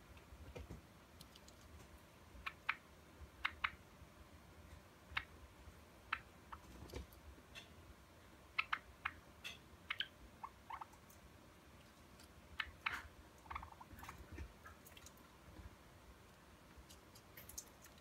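Silver Java sparrow giving soft, short chirps and clicking notes, scattered singly or in small clusters with pauses between.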